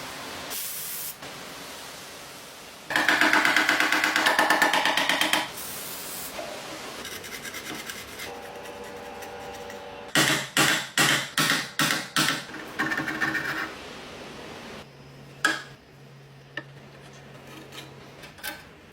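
Workshop tool noises from restoration work: a couple of seconds of fast, rapidly repeating scraping or rasping about three seconds in, then a run of about eight sharp, quick strokes about ten seconds in, with quieter handling noise between.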